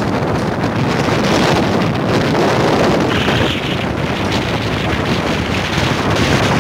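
Strong cyclone wind buffeting the microphone in a loud, steady rush, with rough surf breaking on the beach underneath.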